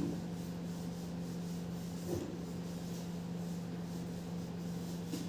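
A whiteboard eraser rubbing back and forth across a whiteboard, wiping off marker writing, with a short knock at the start.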